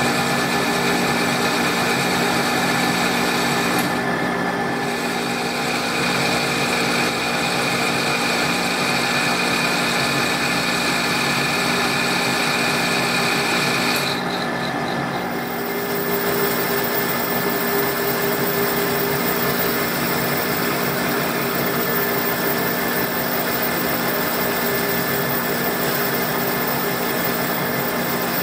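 Monarch metal lathe running while a carbide insert turns a 1144 Stressproof steel shaft, chips peeling off the cut: a steady machine hum under the hiss of the cut. The sound shifts abruptly about 4 seconds in and again about 14 seconds in.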